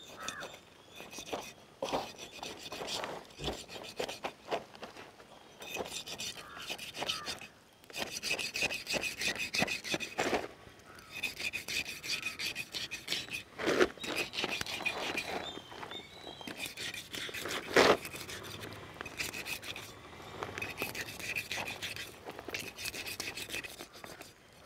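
A blade sawing back and forth through a giant stingray's skin and flesh: repeated scraping strokes in runs with short breaks.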